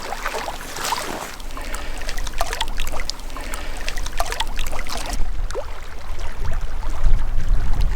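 Water splashing and trickling in irregular small splashes. A low rumble builds over the last three seconds.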